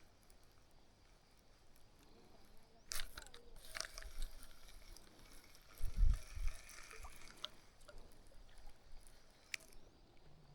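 Wind gusting over the microphone, with a low buffeting rumble strongest about six seconds in, and a few sharp clicks and knocks scattered through it.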